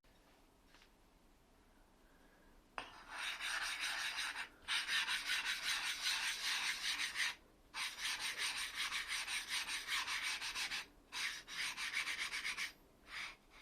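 A steel blade being rubbed back and forth on a sharpening stone, a rapid scraping that starts about three seconds in. It comes in several runs of strokes with short pauses between them.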